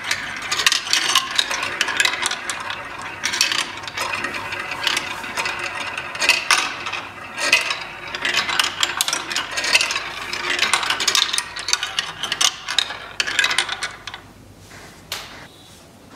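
Rapid clicking and rattling of small hard pieces, thinning out to a few separate clicks near the end.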